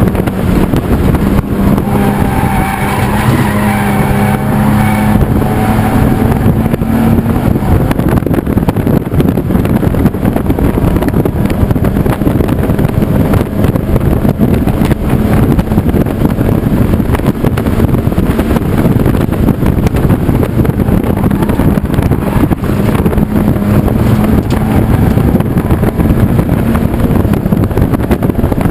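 Race car engine running hard at racing speed, heard from inside the cockpit, with heavy wind and road noise over it. The engine note stands out clearly over the first several seconds and again near the end.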